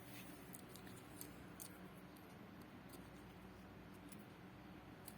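Near silence with a dozen or so faint, scattered light clicks over a steady low hum.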